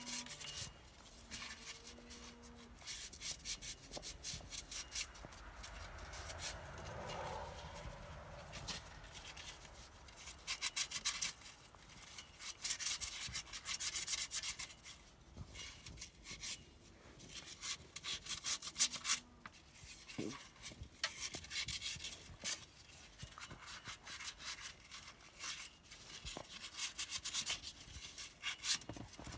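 Sandpaper rubbed by hand over a truck's wheel-hub mounting surface, in bursts of quick back-and-forth strokes with short pauses. It is cleaning grit off the hub face so the wheel seats flush.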